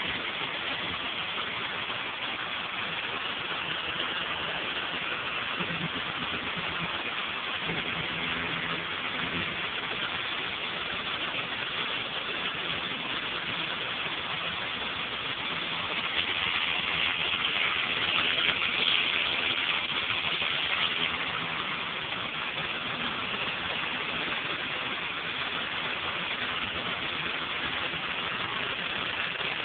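Pressure washer's engine running steadily under the hiss of a turbo nozzle's water jet hitting a concrete sidewalk. The spray grows louder and brighter for a few seconds past the middle.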